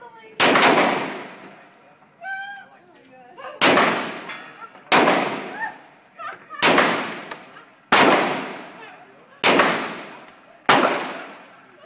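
Glock 34 Gen 4 9mm pistol fired in slow aimed single shots, about seven, roughly one every one and a half seconds after a longer pause following the first. Each sharp report trails off in the echo of an indoor range.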